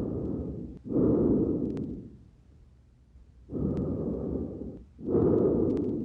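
Normal vesicular breath sounds heard through a stethoscope on the front of the chest. There are two breaths, each a soft rushing in-and-out pair, with a pause of about a second and a half between them.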